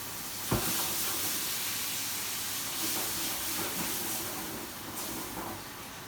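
Water poured into a hot pan of simmering sauce, hissing and sizzling loudly. A knock comes about half a second in as the water goes in, and the hiss dies down near the end.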